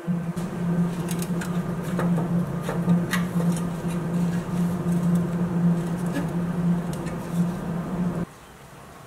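Light metal clicks and scrapes from a hand tool working at the rusty pressed-steel body of a 1965–66 Tonka pickup toy, over a steady low hum that cuts off suddenly near the end.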